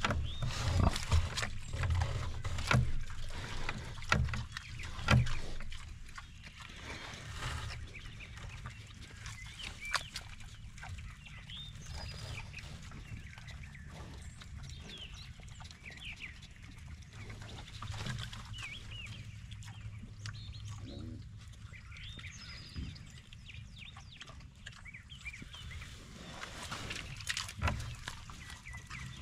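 Gloucestershire Old Spot gilts rooting and feeding in the bedding, with low grunts and snuffling, loudest in the first six seconds. Birds chirp in the background throughout.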